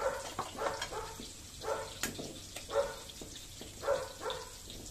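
A dog barking repeatedly, roughly once a second. A single sharp tap about two seconds in, an egg being cracked with a spoon.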